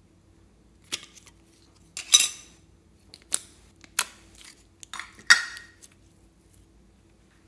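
Yellow store-bought slime being pulled from its container and pressed and stretched by hand: a string of sharp sticky pops and crackles, about six in all. The loudest come about two seconds in and just after five seconds, and some trail off in a brief crackle.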